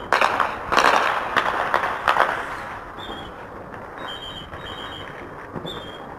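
An irregular string of about eight gunshots, each with an echo, over the first two and a half seconds, loudest about a second in. After that, short high bird chirps sound over the quieter background.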